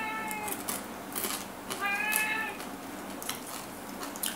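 A domestic cat meowing, begging for the fried fish it has smelled: the end of one meow about half a second in, then a second meow about two seconds in. Light clicks of eating come between the meows.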